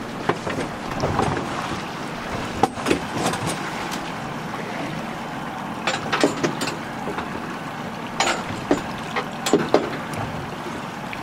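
Wind buffeting the microphone on an open boat in choppy water, under a series of sharp knocks and slaps that come in clusters.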